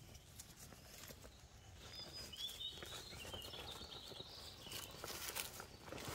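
Faint rustling and pattering of whippet puppies' paws in dry leaves and against a plastic tarp, getting busier in the last second or so. A few short high chirps come around the middle.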